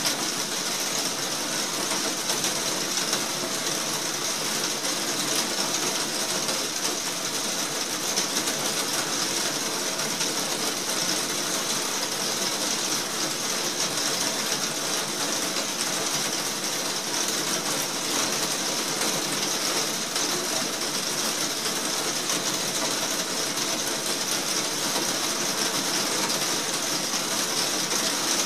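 Heavy rain falling on a translucent roof, heard from the room beneath it: a dense, steady patter of drops that never lets up.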